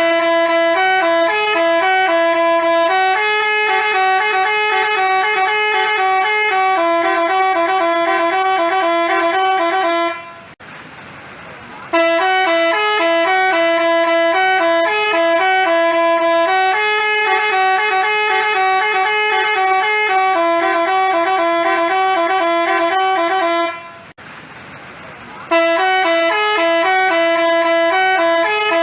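Telolet basuri musical bus horn playing a tune in a run of stepped, held notes. It breaks off twice, about ten seconds in and again near 24 seconds in, for a second or two of faint hiss before the tune starts again.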